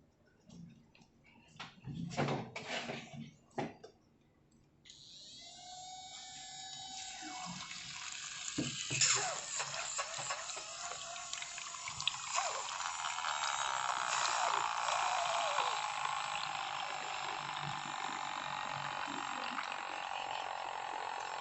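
A few handling knocks, then about five seconds in a steady stream of water starts running and splashing in a small battery-powered rainwater-harvesting model. It changes in pitch for the first few seconds, then settles into an even rush.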